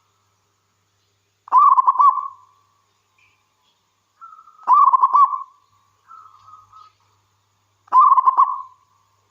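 Zebra dove (perkutut) cooing: three quick trilled coo phrases about three seconds apart, each lasting about a second, with fainter coos between the second and third.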